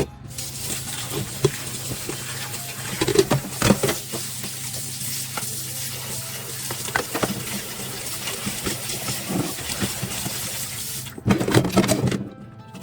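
Kitchen tap running into a sink, with dishes clinking now and then. The water stops about eleven seconds in, followed by a short clatter of dishes.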